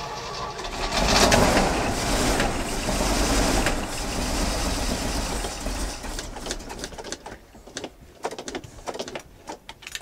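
1981 Jeep J20's AMC 360 V8 running rough on its first start in a revival. It swells about a second in, then drops back and runs unevenly, with dips and spikes in the last few seconds.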